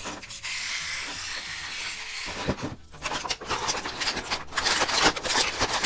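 Rustling of plastic packaging for about two seconds, then a quick run of clicks and taps as hard plastic toy pieces are handled.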